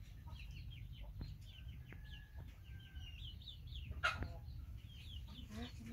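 Many birds chirping in quick, short, falling calls that overlap, with a sharp click about four seconds in.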